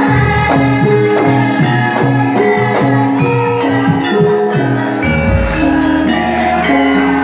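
Band music with a steady beat: sustained melody notes over regular jingling percussion, with a deep bass line entering about five seconds in.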